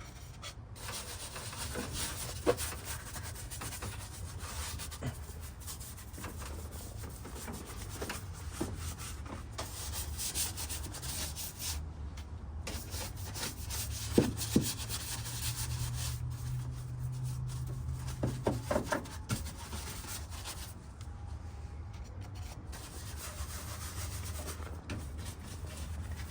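Medium-soft bristle brush scrubbing soapy water over engine-bay surfaces: steady rough brushing strokes, with a few light knocks.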